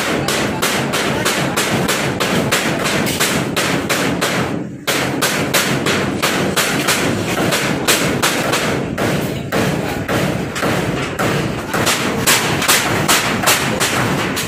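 Hammering on a house under construction: rapid, irregular hammer blows, several a second, with a brief pause about five seconds in.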